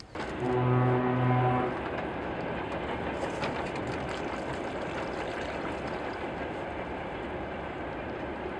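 A loud horn blast held at one steady pitch for about a second, followed by a steady rumble.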